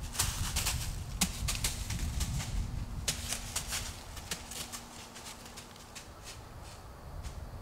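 Irregular rustling and crunching, like movement through dry leaf litter, busiest in the first half and thinning out, over a low rumble that fades after about three seconds.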